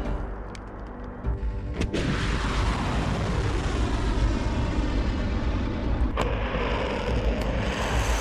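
Two sharp explosion blasts, about two seconds in and again about six seconds in, over a continuous deep rumbling roar, with music faintly underneath.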